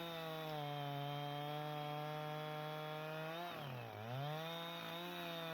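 Chainsaw with a Turbo Sawmill M8 milling attachment running at speed as it cuts through a log. A little over three seconds in, its pitch drops sharply and then climbs back: the engine bogs under load as the saw is pushed hard through the wood.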